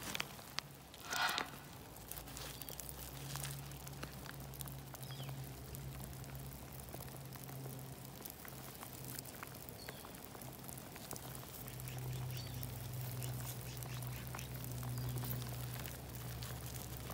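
Footsteps crunching over wet gravel and pebbles, with scattered small clicks of stones, over a steady low hum. About a second in, one short loud sound stands out above the rest.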